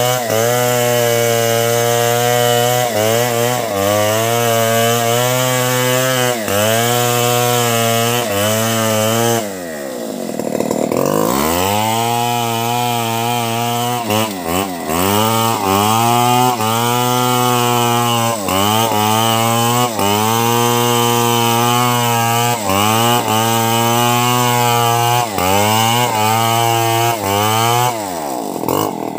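Stihl two-stroke chainsaw cutting through a felled log, its engine note dipping and recovering again and again as the chain bogs under load. About ten seconds in it eases off and revs back up, and it drops off again near the end.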